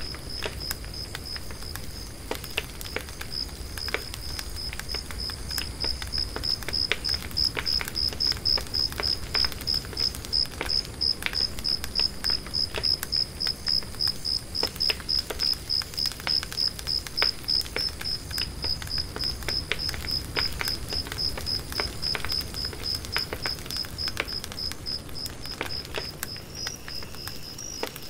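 An insect chirping a steady high-pitched note in short regular pulses, about two to three a second, louder through the middle, over scattered faint ticks and a low steady noise.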